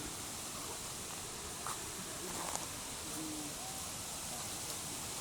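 Jungle ambience: a steady hiss under a few short, soft bird calls, with a couple of light taps about two seconds in.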